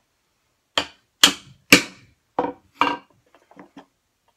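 Hammer striking a mortise chisel, chopping a mortise by hand: five sharp blows about half a second apart, then a few lighter knocks near the end.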